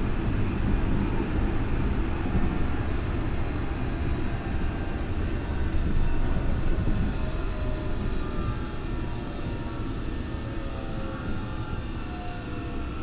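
Tokyo Metro 03 series armature-chopper train running: a heavy steady rumble of wheels and track, with faint whining tones from the drive that glide slowly down in the second half as the level eases, the train beginning to slow.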